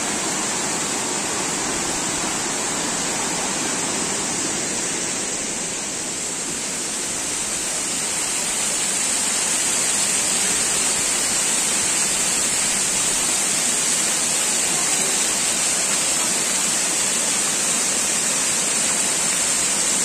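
Tiered waterfall: water rushing and splashing down over mossy rocks in a steady roar of white noise, a little louder from about eight seconds in.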